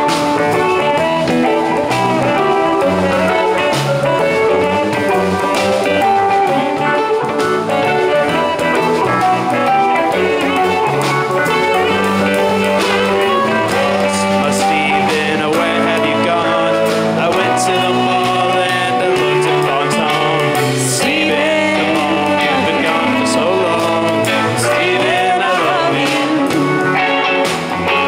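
Live rock band playing an instrumental passage of a song, with electric guitars, electric bass, a drum kit and saxophone.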